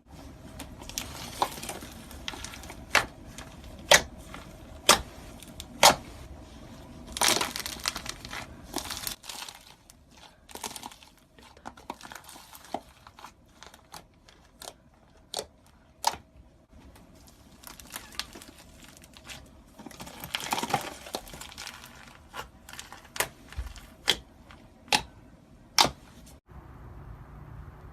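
Slime being handled, with a crinkly crackle and sharp popping clicks, often about one a second, that stop abruptly near the end.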